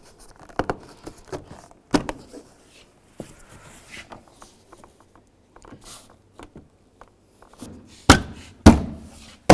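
Plastic door trim panel being fitted to a car door: light clicks and knocks as it is lined up, then three loud thumps near the end as it is tapped on, seating its push-pin clips.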